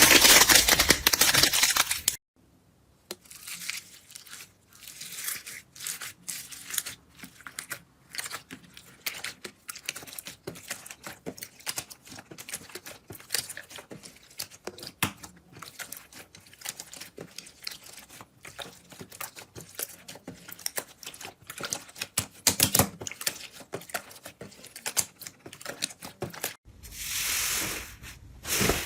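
Slime being handled, with many small sticky crackles, pops and clicks. A loud noisy burst comes in the first two seconds and another near the end.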